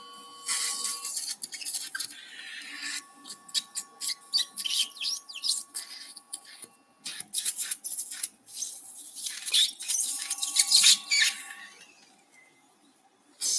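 Surgical suction tip drawing blood and fluid from the wound in irregular hissing slurps. A steady electronic tone from theatre equipment comes on three times.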